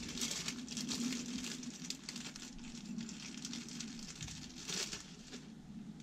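Rustling and crinkling handling noise, irregular and scratchy, over a low steady hum.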